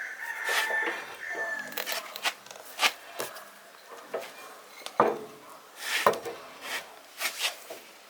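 Hand tools knocking, clinking and scraping on machine parts during a repair, with about ten separate sharp knocks and a short scraping squeal near the start.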